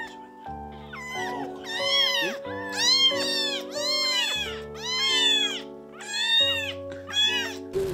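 Several young kittens meowing over and over in high, rising-and-falling cries, about two a second and often overlapping. These are the distress cries of kittens tied up inside a plastic rubbish bag.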